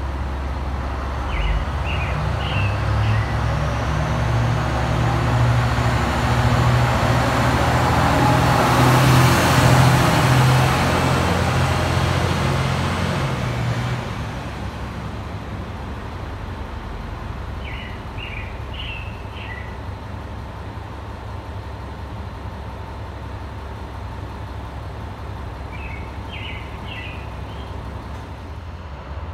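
Single-car diesel railcar's engine running as it moves off along the platform, the drone swelling to its loudest about ten seconds in and dropping off sharply at about fourteen seconds. A few brief clusters of short high chirps sound over it.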